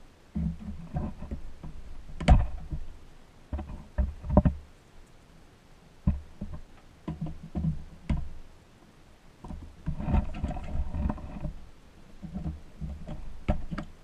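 Needle-nose pliers prying old rubber tires off the steel wheel hubs of a vintage Tonka toy truck: handling rumble and rubbery squeaks, broken by sharp clicks and knocks of the pliers against the metal hubs several times.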